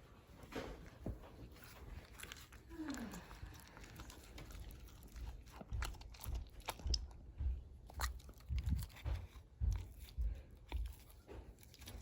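Dog crunching and chewing a homemade baked dog treat. Irregular chomps and crunches come about one or two a second, mostly through the second half.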